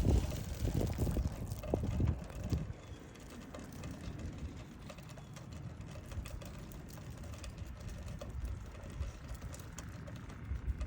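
Wind buffeting the microphone in gusts for the first couple of seconds, then easing to a low steady rumble with faint scattered ticks.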